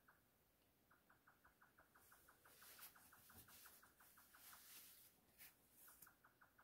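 Near silence, with a faint, rapid, even chirping of about eight pulses a second that breaks off briefly about five seconds in.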